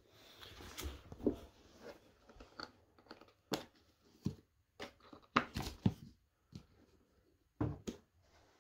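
Latches of a small tan polymer hard case being snapped open and the lid lifted: a series of sharp plastic clicks and knocks, most of them in the middle seconds, with handling noise between them.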